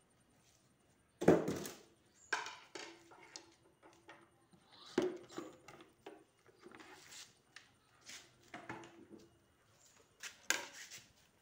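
Irregular knocks and clunks of a 7-litre plastic pressure sprayer being handled on a concrete floor. The loudest knock comes about a second in.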